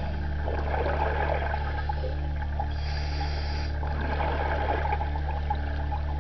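A scuba diver's regulator breathing, with two bursts of bubbling exhaust, over background music of sustained low notes.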